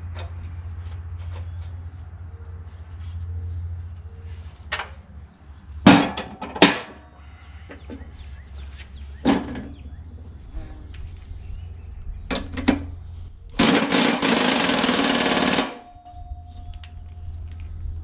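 Metal clanks and knocks from tools and hardware during reassembly work, the two loudest about six seconds in, under a steady low hum. Near the end comes a loud continuous rattling burst lasting about two seconds.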